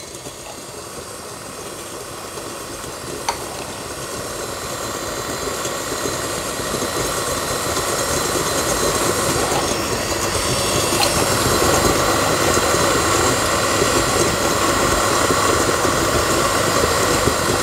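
Stand mixer motor running steadily, its beater creaming butter, brown sugar and vanilla sugar; the sound grows gradually louder.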